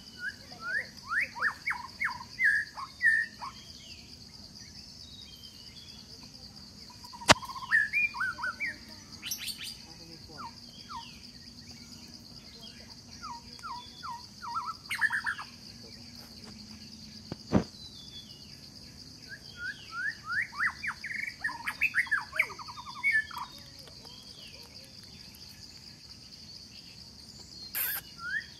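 Repeated bursts of quick, high chirping calls, several in a row each time, over a steady high insect drone, with two sharp clicks about a quarter and about two-thirds of the way through.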